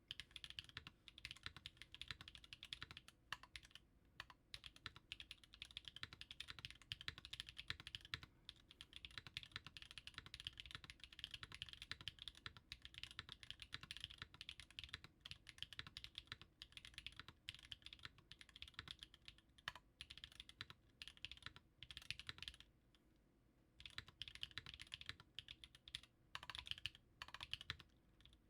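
Typing on a Klippe T mechanical keyboard with a carbon fibre plate and Baby Kangaroo switches: fast, continuous key strokes with brief lulls, and a pause of about a second a little past three-quarters through.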